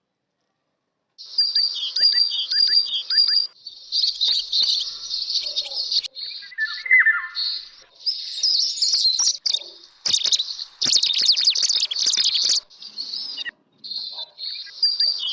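Recorded bird song: rapid, high chirping and trilling phrases in several bursts separated by short pauses, starting about a second in.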